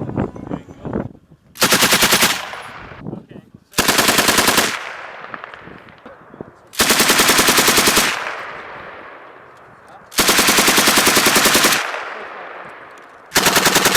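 M240B 7.62 mm machine gun firing five short bursts of automatic fire a few seconds apart, the later bursts a little longer. Each burst is followed by an echo that dies away over a couple of seconds.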